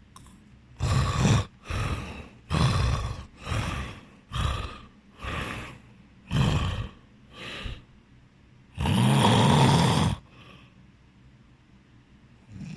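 A sleeping person snoring heavily: a quick run of short snores, about one a second, then one longer, louder snore near the end.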